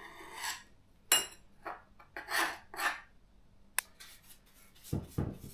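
A brush scrubbing the body of an AL-KO EKS 2000/35 electric chainsaw in short, uneven strokes that speed up in the second half, with a sharp click near the middle and two dull knocks near the end.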